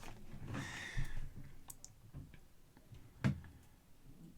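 Faint handling noise of small objects: a soft rustle, a few light ticks, and one sharper click about three seconds in.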